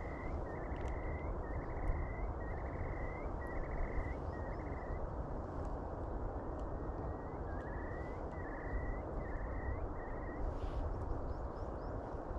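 Steady low rush of wind and sea on a rocky shore, with a bird repeating short, evenly spaced calls, about two a second, in two runs that stop about halfway through and again near the end.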